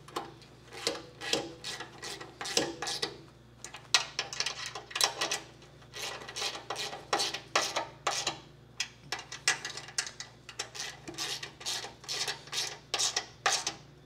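Bolts on a pedal assembly bracket being snugged up with a hand wrench: irregular metallic clicks and scrapes, several a second, coming in bunches.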